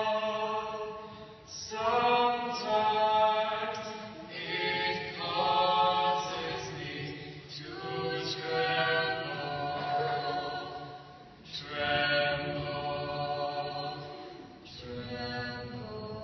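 Unaccompanied singing in long held notes, sung in phrases with brief breaks between them.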